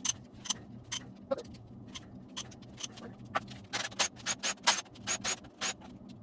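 Sharp metallic clicks and clinks at irregular intervals from hand tools and valvetrain parts as the rocker arms and pushrods come off a 5.3 L LS V8, with a quick run of louder clinks in the second half. A low steady hum runs underneath.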